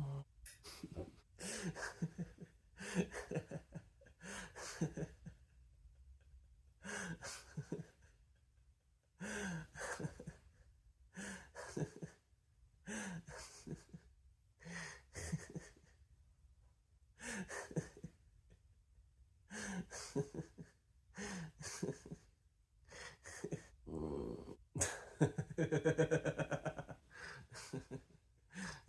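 A person's breathy gasps of laughter, one every second or so, with a longer pitched laugh about 25 seconds in.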